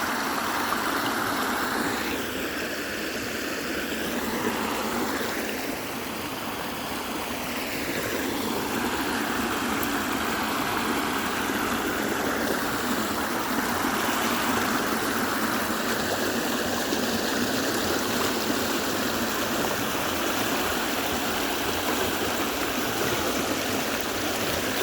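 Creek water running over a low falls: a steady rush of water. Its tone shifts and the level dips slightly a few seconds in.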